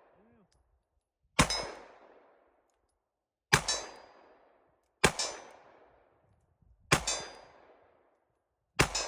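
Five shots from a Glock 43X 9mm pistol, fired one at a time about one and a half to two seconds apart, each followed by a fading echo.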